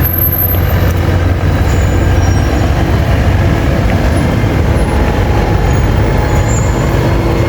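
Steady street traffic noise, with the low hum of a large vehicle's engine running close by.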